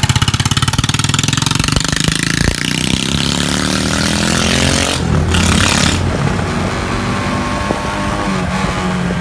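Motorcycle engine fitted with a pod air filter running as the bike is ridden, with a fast, even exhaust pulse at first that turns smoother after about two and a half seconds as the bike moves off down the street.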